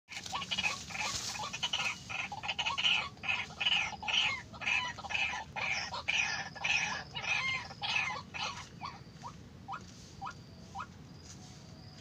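White-breasted waterhen calling: rapid repeated harsh calls, about two a second. After about eight seconds the calls fade to fainter, single short rising notes.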